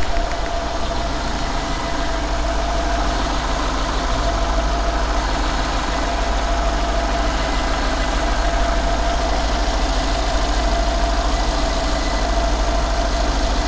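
Mercedes-AMG E63's M157 twin-turbo V8 idling steadily, with a constant tone running through it.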